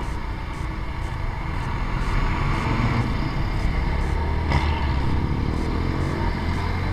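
Yamaha SZ-R motorcycle's single-cylinder engine running under way in traffic, recorded on the bike's action camera, its note and loudness rising a little about two seconds in. A brief click about halfway through.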